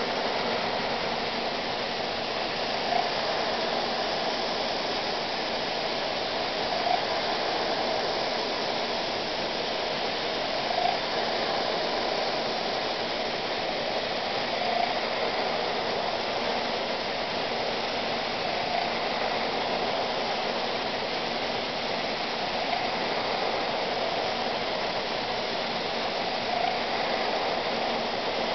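Droop & Rein FS130SKE CNC milling machine contour-milling a metal part with a ball-nose end mill under a nozzle: a steady hiss and cutting whir, with a short louder tick about every four seconds as the tool turns at the end of a pass.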